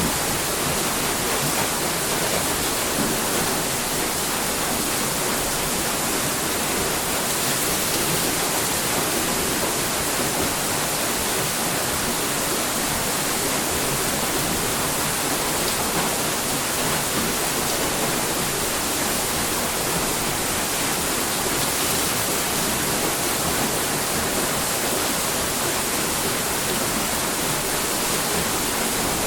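Water rushing and falling steadily at a water mill, an even, unbroken splashing hiss.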